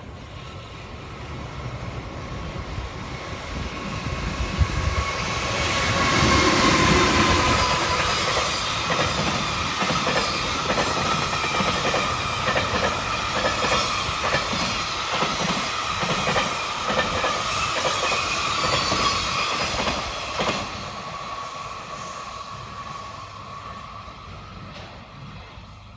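Freight train behind an electric locomotive passing close by. The locomotive's rumble builds to a peak about six seconds in. A long string of wagons follows, with a rapid, regular clickety-clack of wheels over rail joints and a steady wheel squeal. The wagon noise cuts off suddenly after about twenty seconds and then fades away.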